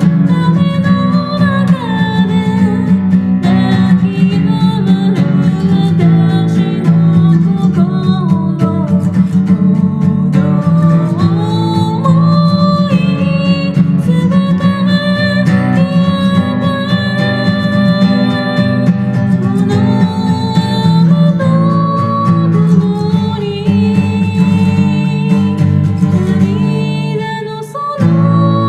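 A singer performing a Japanese song while playing an acoustic guitar, the voice gliding between held notes over the guitar chords. The sound drops briefly near the end.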